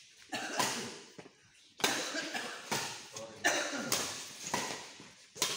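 Badminton rally: sharp racket strikes on the shuttlecock, several in quick succession, about one every second, each leaving a short echo in the hall.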